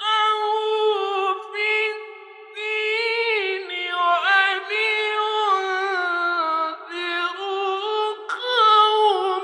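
A solo male voice chanting Quran recitation unaccompanied, in long, high, ornamented held notes, with a short breath pause about two seconds in.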